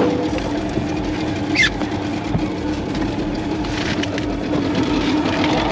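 Suzuki outboard motor running steadily, driving an inflatable dinghy. A brief high falling squeak about a second and a half in.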